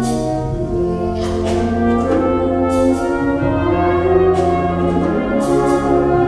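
Wind band playing sustained, shifting brass chords, with horns, trumpets and trombones, punctuated by a few percussion strokes.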